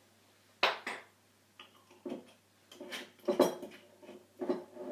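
Kitchen utensils clinking and knocking against a pan and dishes: a string of separate clinks, loudest under a second in and again about three and a half seconds in.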